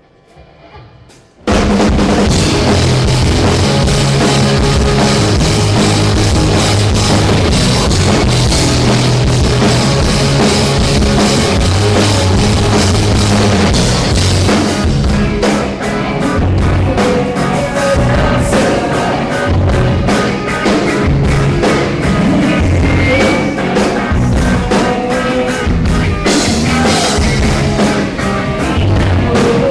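Rock band playing loudly with drum kit, bass and guitars, starting abruptly about a second and a half in.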